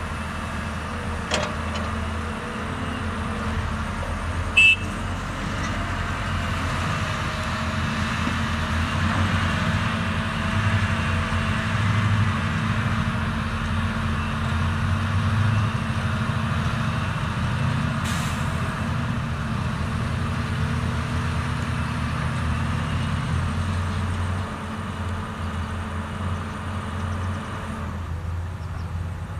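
Six-cylinder diesel engine of a CAT 320D RR excavator running under working load, a steady low drone that swells in the middle and eases near the end. About four and a half seconds in there is one brief, sharp, loud sound.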